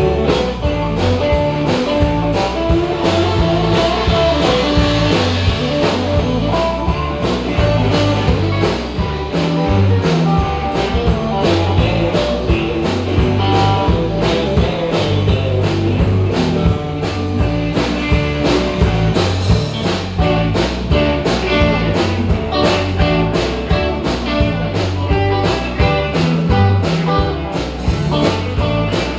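Rock and roll band playing, guitar to the fore over a steady drum beat.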